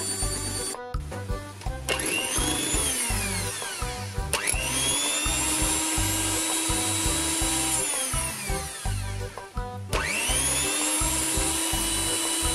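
Electric hand mixer whirring at high speed as its beaters whip egg whites with sugar substitute into stiff meringue. The motor's whine rises in pitch as it speeds up about four seconds in and again near ten seconds, and drops in between.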